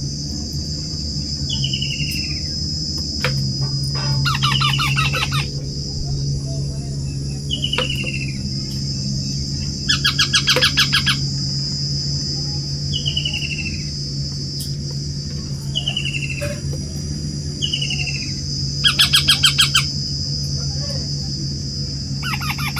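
Young parrots calling: short falling call notes repeated every few seconds, with three bursts of rapid chattering calls, the loudest about ten seconds in and again near the end. A steady high-pitched drone and a low hum run underneath.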